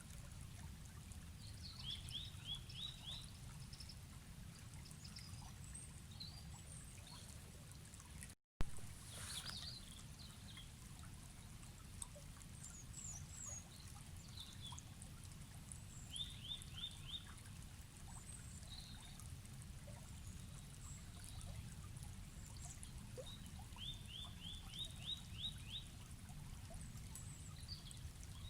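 Forest river flowing, a low steady rush of water, with birds chirping over it; a quick run of five or six high notes comes three times. About eight seconds in, the sound drops out for a moment and comes back with a sharp click.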